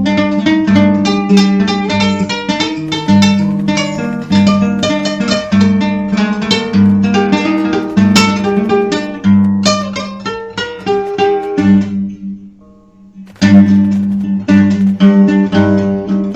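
Dark folk music: quickly plucked acoustic guitar notes over a steady low drone. It fades almost to nothing about twelve seconds in, then comes back in full about a second later.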